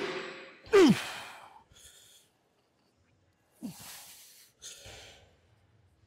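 A man's forceful voiced exhales, each falling sharply in pitch like a heavy sigh or grunt, a loud one about a second in and a weaker one past the middle, with softer breaths between.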